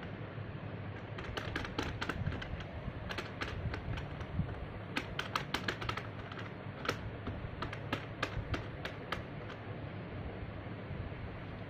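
Plastic keys of a children's toy laptop clicking as they are pressed by a parrot's beak and a person's fingers: irregular single clicks and quick clusters of clicks.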